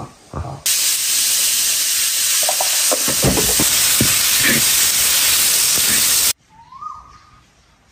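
Stir-fry sizzling loudly in a large wok as sliced vegetables and meat are turned with a metal spatula, with a few spatula knocks and scrapes in the middle. The sizzle cuts off suddenly near the end.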